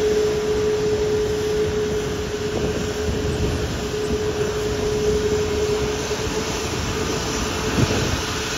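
Airbus A380 taxiing past close by, its Rolls-Royce Trent 900 jet engines running at low taxi power: a steady whine over a broad rumble.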